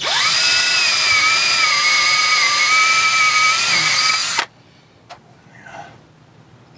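Cordless drill spinning up and drilling into a stripped oil-pan bolt hole on a Detroit Diesel 6V92 engine, to open it out for a helicoil. It runs at a steady high whine for about four seconds, then stops suddenly; a single light click follows.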